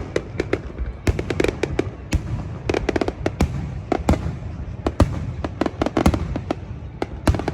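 Fireworks going off: a rapid, irregular string of bangs and crackling pops over a steady low rumble.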